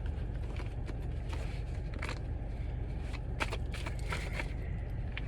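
A tarot deck being shuffled: a run of soft card flicks and clicks, irregularly spaced, over a steady low hum.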